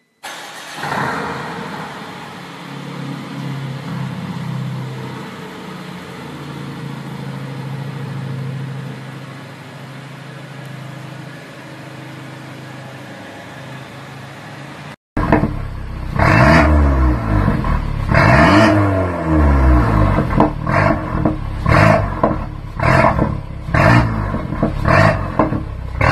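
Mercedes-Benz A250 Sport's turbocharged four-cylinder engine through an ARMYTRIX valve-controlled exhaust, first idling steadily. About halfway through it is much louder, revved hard in two long revs that rise and fall, then a quick series of sharp throttle blips.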